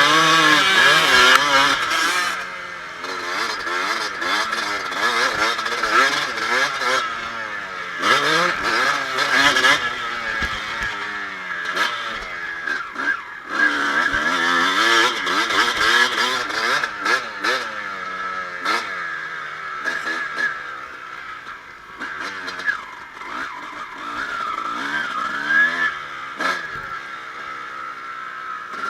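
Kawasaki KX250 dirt bike engine heard up close while riding a motocross track, its pitch repeatedly climbing hard and dropping off as the throttle is opened and shut, with wind rushing over the microphone at speed. It runs quieter and lower in the second half.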